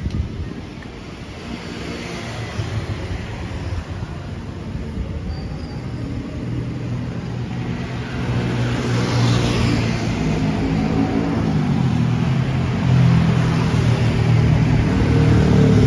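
Street traffic: vehicle engines running close by, with one engine hum growing louder through the second half and a vehicle rushing past about nine seconds in.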